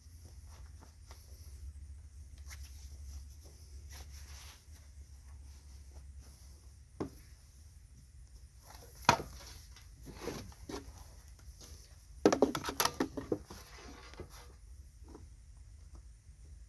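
Scattered knocks and clatter of tools and metal being handled, with a dense burst of clattering about twelve seconds in and a low hum in the first few seconds.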